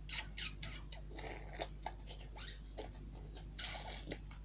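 Rapid short clicks and rustling noises close to the microphone, with a brief burst of hiss about three and a half seconds in, over a low steady electrical hum.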